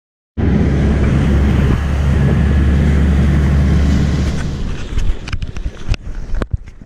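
Fishing boat running at speed through waves: a steady low engine drone under rushing spray and wind buffeting the microphone, starting abruptly. About four and a half seconds in it drops away to quieter water sounds with a few sharp clicks and knocks.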